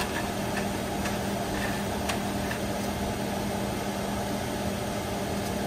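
Steady mechanical hum with a few faint scattered ticks.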